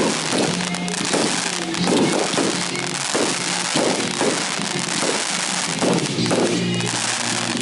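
Fireworks going off in quick succession, about a dozen booms roughly one or two a second over a continuous crackling hiss, with music playing underneath.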